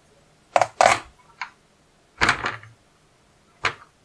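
A pumpkin being handled on a plastic cutting board: about five separate knocks and thuds, two of them close together about a second in, then one near the middle and one near the end.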